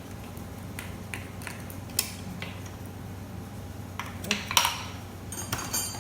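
Small metal transmission parts, accumulator springs and pistons, clinking and rattling as they are set down in a metal pan: scattered single clinks, then a louder cluster about four seconds in and a short rattle near the end.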